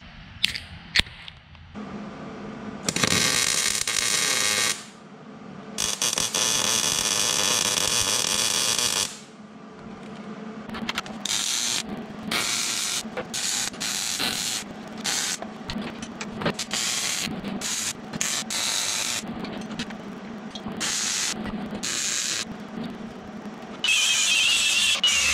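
Metal-shop power tools working steel plate: two long hissing runs of a few seconds each, then a long string of short stop-start bursts.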